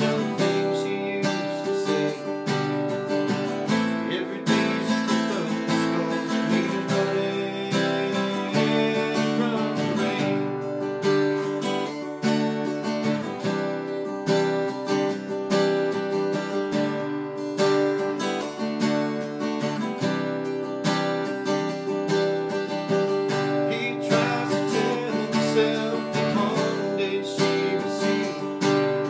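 Acoustic guitar strummed steadily, playing an instrumental passage of a song.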